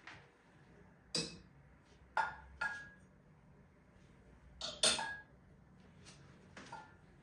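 Tableware being handled and set down, giving about seven separate clinks and knocks, some with a short ring. The loudest comes near five seconds in.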